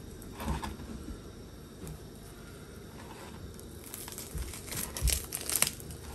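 Cooked ribs being torn apart by hand: soft crackling and wet tearing as the crusted meat pulls off the bones, busiest in the last couple of seconds. The meat comes off the bone easily, a sign that it is tender and well cooked.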